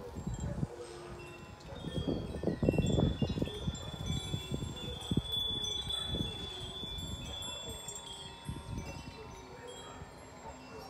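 Wind chimes hanging in a tree ringing, with many overlapping clear tones sounding and fading. A low, noisy rumble comes through about two to four seconds in.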